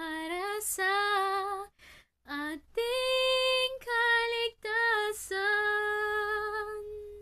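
A young woman singing solo without accompaniment, in short phrases with brief silent breaths between them, ending on a long held note near the end.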